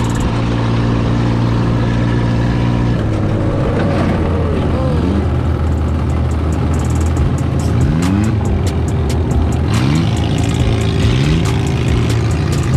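Off-road buggy engine running steadily, then revving up again and again in short rising sweeps.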